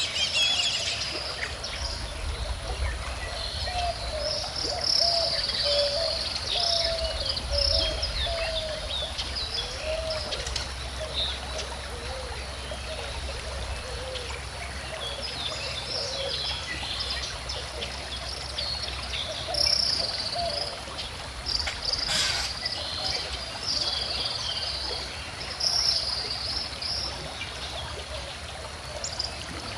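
Calm river water flowing steadily, with several birds singing and chirping over it in short repeated phrases.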